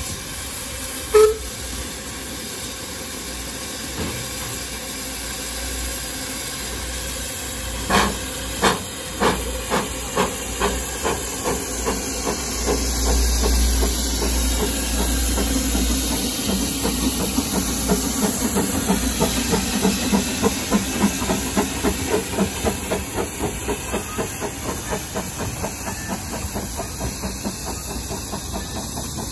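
Two narrow-gauge steam locomotives, the Ffestiniog Railway England engine Welsh Pony piloting a green Hunslet, pulling away with a train. Steam hisses steadily, and from about eight seconds in the exhaust beats begin, slow at first and quickening as the train gathers speed. A short whistle sounds about a second in.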